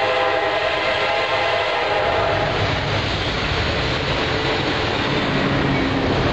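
Horn of an oncoming Norfolk Southern GE C40-9 diesel locomotive sounding a chord over the steady rumble and clatter of a double-stack freight train rolling past. The horn stops about two and a half seconds in, and the locomotive's diesel engine comes up as it passes.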